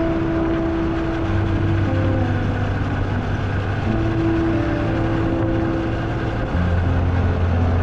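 Motorcycle engine running at a steady cruising speed with wind rush on the microphone; the engine's low tone stays level and shifts in steps rather than gliding.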